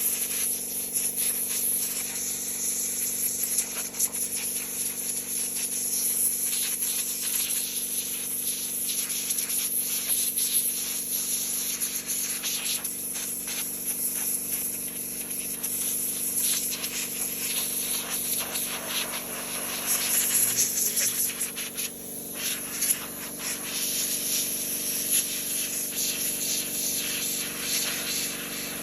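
1 hp Daewoo electric air compressor running with a steady hum, while compressed air hisses from the nozzle in many short, irregular bursts to blow dust off a plastic brick model.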